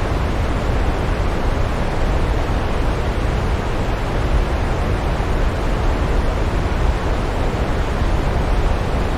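Steady rushing of a waterfall: a constant, even roar of falling water, heaviest in the low end, with no breaks or changes.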